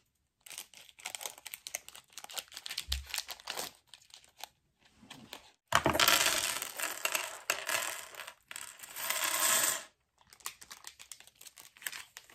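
Plastic LEGO parts bag crinkling as it is cut open with scissors and handled, with a loud stretch of rustling for about four seconds in the middle.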